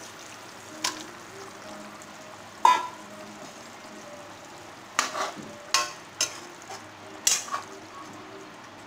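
Fish curry broth bubbling at a steady boil in a metal pan, with a metal spatula knocking and scraping against the pan several times, one knock ringing briefly, as the fish is put in and stirred.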